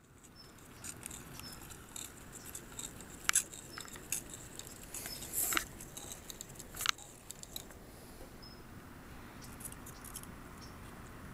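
Light, irregular clicks and crinkling from a cardboard wind-powered walking robot, its paper parts and wooden-stick legs tapping on a wooden tabletop, with a few sharper clicks around the middle. A low, steady rush of wind runs underneath.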